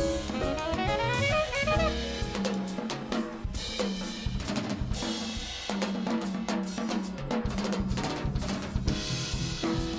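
Live jazz quartet of alto saxophone, piano, upright bass and drum kit, with the drum kit to the fore. About two seconds in, a fast run of melodic notes gives way to busy snare and bass-drum hits over a held low note.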